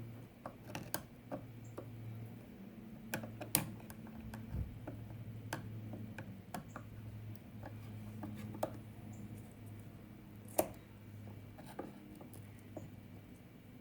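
Scattered light clicks and taps of a chainsaw's metal parts and a screwdriver being handled while the chain tension is adjusted, over a faint steady low hum.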